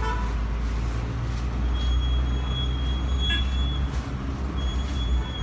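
Street traffic: a steady low rumble of road vehicles, with a thin high whine starting about two seconds in and coming back near the end.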